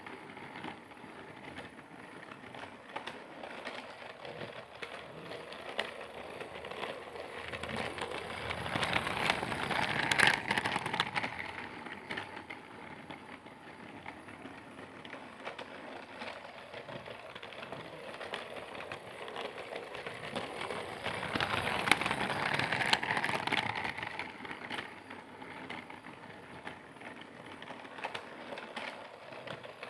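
Percy train running with a steady clatter and clicking, swelling louder twice, about twelve seconds apart.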